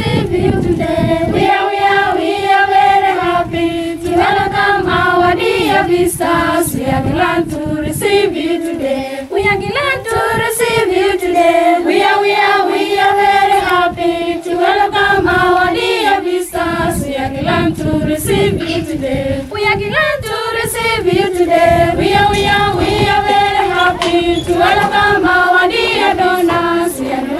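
A choir of voices singing a melody together, held notes gliding from phrase to phrase, with sharp clicks through it.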